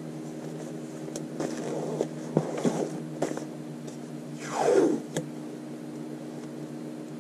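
Washi tape being peeled off its roll and pressed along the edge of a paper journal page: scratchy paper and tape handling, with one louder drawn-out peel falling in pitch about four and a half seconds in. A steady low hum runs underneath.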